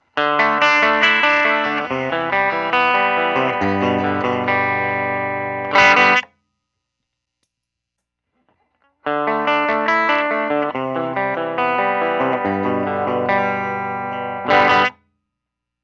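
Clean electric guitar played through a Benson tube amp: a picked single-note phrase that ends in a strummed chord, then after a pause of about three seconds the same phrase again, ending in the same chord. The two takes are an A/B comparison of the amp's clean tone on different settings.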